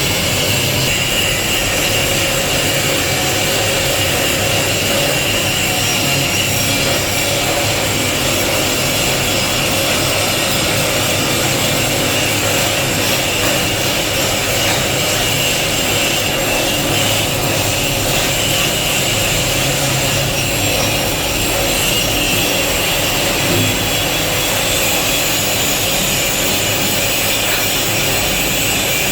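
Shielded metal arc (stick) welding: the arc of an E6013 electrode sizzling steadily as it lays the cover pass, the machine set to about 110 amps.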